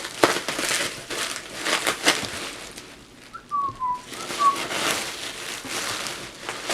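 Plastic bubble wrap crinkling and rustling as it is pulled out of a box, in irregular bursts. In a short lull about halfway through come a few brief whistle-like chirps.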